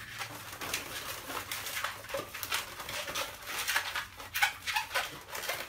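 Long black latex modelling balloon being twisted into a chain of small bubbles: repeated squeaks and rubbing of the rubber as each bubble is twisted off.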